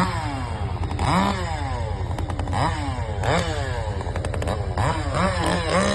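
Two-stroke chainsaw revved again and again over its idle, each rev climbing sharply and then winding down.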